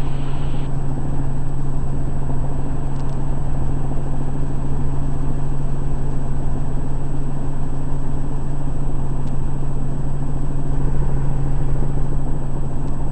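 Helicopter in flight heard from inside the cockpit: a steady low drone of rotor and engine with a constant hum.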